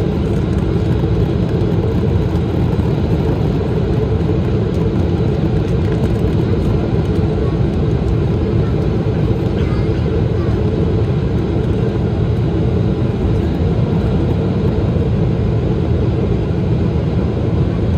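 Steady low roar inside a Boeing 777-300ER's cabin, heard from a window seat beside the wing: airflow and the GE90-115B engines during the descent.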